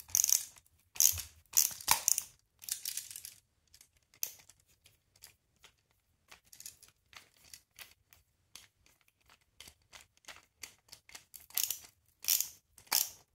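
A screwdriver turning and tightening the unused brass terminal screws on a 15-amp electrical outlet: a run of short, irregular scratchy clicks of metal on metal. It is loudest for the first three seconds and again near the end, and faint in between.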